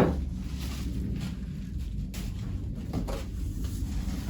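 Faint rustling and a few light knocks as lathe parts and packing material are handled, over a steady low hum.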